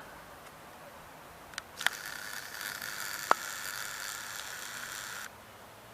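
A camera's built-in zoom lens motor whirring steadily as the lens zooms, starting with a couple of clicks, with one sharp click partway through, and cutting off suddenly a little after five seconds in.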